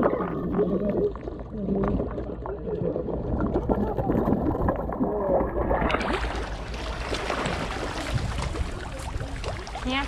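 Large carp gurgling and splashing at the water's surface as they crowd in for bread. The first six seconds sound muffled, with the camera down at the water; from then on the splashing is clear, with many small splashes and slaps.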